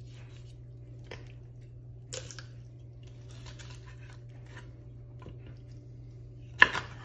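Kitchen knife cutting a wing off a raw whole chicken on a wooden cutting board: faint scattered cutting and handling sounds, with one sharp knock near the end.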